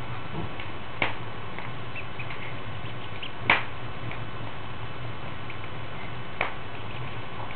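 Newly hatched Aylesbury ducklings giving faint, short high peeps here and there, with three sharp taps spread through, the middle one loudest, over a steady low hum.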